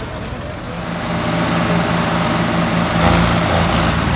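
Tractor diesel engines revving up about a second in and then running hard at high throttle under the load of a tractor tug of war.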